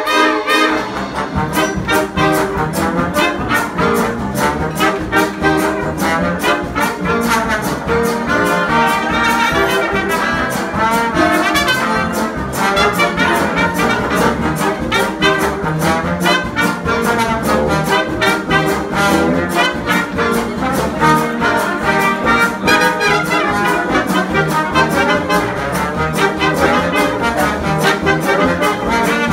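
A live jazz big band playing an up-tempo number, with trumpets, trombone and saxophones over a steady beat from drums and tuba.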